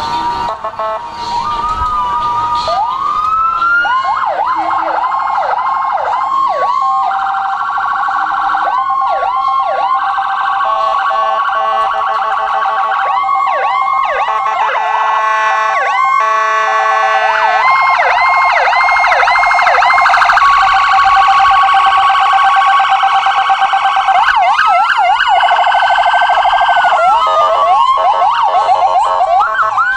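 Several electronic police-car sirens sound together, overlapping. They switch between fast repeated sweeps, steady alternating two-tone patterns, and a slow wail that rises and then falls near the end.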